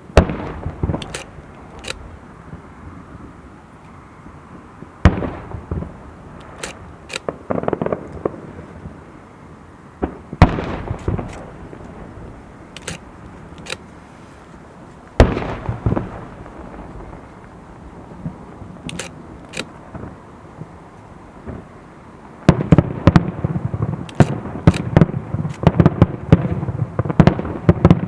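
Aerial firework shells bursting in the sky, one loud bang about every five seconds, each followed by a trail of smaller crackling pops. Near the end a rapid barrage of many bangs sets in.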